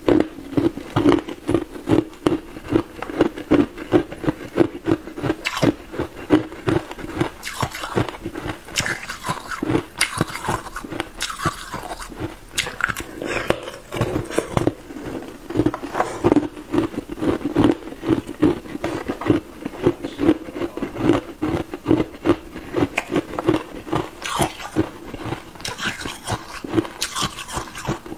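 Hard ice cubes being bitten and chewed, close to a clip-on microphone: a rapid, unbroken run of sharp crunching cracks.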